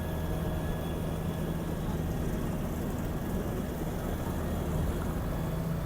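A motor vehicle engine running steadily: an even low hum with no clear change in speed.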